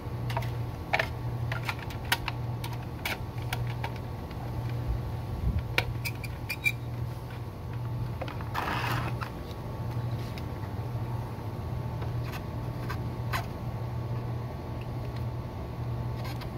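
Scattered sharp clicks and a short scrape as the plastic fuel pump and module housing are handled and pressed together, over a steady low hum that swells and dips about once a second.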